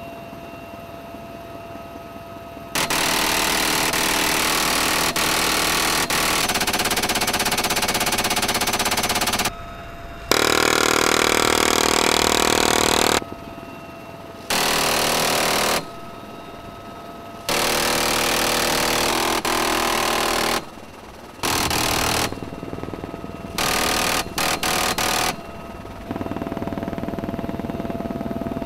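GAU-17/A 7.62 mm minigun firing from a helicopter door in a series of bursts, each a continuous buzz that starts and stops abruptly: the first runs about seven seconds, the later ones are shorter, with a few quick short bursts near the end. The UH-1Y Venom helicopter's steady turbine and rotor noise fills the gaps between bursts.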